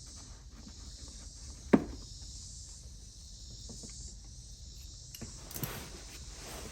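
Hands working on a car's interior trim and dashcam cable: a sharp plastic click about two seconds in, a few faint ticks, then a short patch of rustling and tapping near the end, over a steady hiss.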